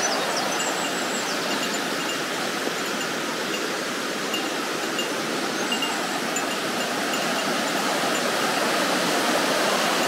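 Steady rush of the Shibukawa river's water sliding over smooth bedrock in a long, shallow slide waterfall (nameri-daki).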